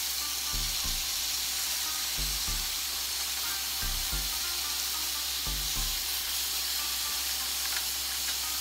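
Souvlaki meat skewers and sliced onions sizzling on a smokeless electric indoor grill with its fan running: a steady hiss. Soft low thumps come in pairs about every second and a half, then stop a little past halfway.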